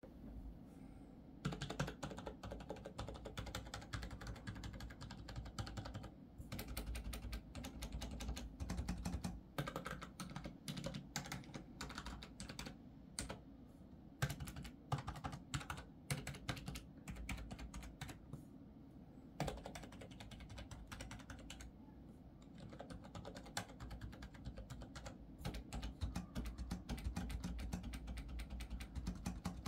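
Typing on a Skydigital NKEY 8K membrane gaming keyboard: rapid runs of keystrokes with a few brief pauses, starting about a second and a half in.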